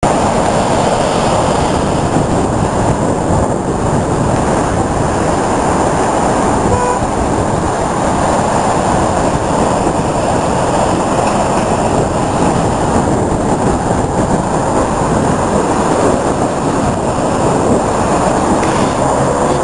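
Storm-driven sea surging and breaking over a rocky shore, a loud, steady rush of surf and churning foam.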